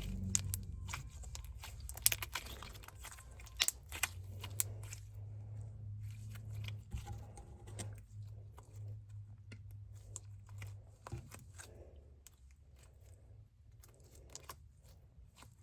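Slime being squeezed, stretched and poked by hand: irregular sticky clicks and small pops, busiest in the first half and growing fewer and quieter toward the end.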